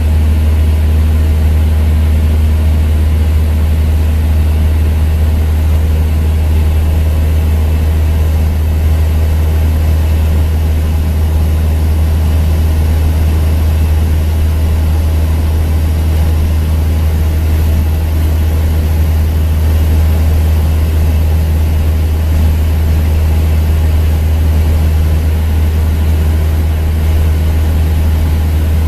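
Cessna 172's piston engine and propeller running steadily in flight, heard inside the cabin: an even low drone with a hiss of air over it.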